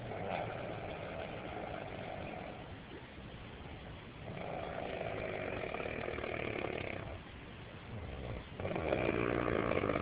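Snoring: three long snores a second or so apart, each lasting about two to three seconds, the last one the loudest.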